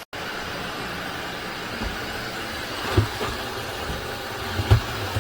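Tineco Floor ONE S7 PRO cordless wet-dry floor cleaner running with a steady motor hum and whoosh, with two sharp knocks about three seconds in and near the end.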